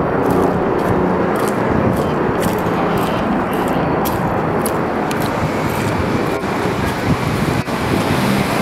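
Steady city street traffic noise, a continuous loud wash with faint scattered clicks.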